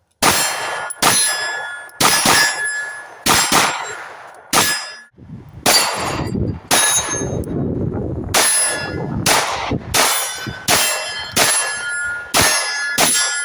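Stealth Arms Platypus 9mm pistol fired at a slow, uneven pace, about fifteen shots roughly a second apart. Each shot is followed by the ringing clang of a steel target being hit.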